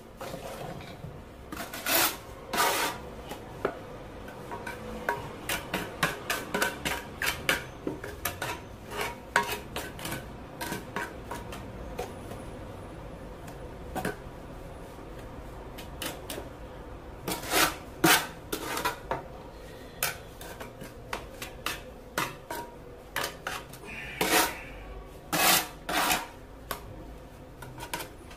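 Steel trowel scraping and clinking as mortar is scooped off a metal mortar board and spread into the gap left by a removed floor tile. The irregular scrapes and taps come in louder flurries a couple of seconds in, a little past halfway, and near the end.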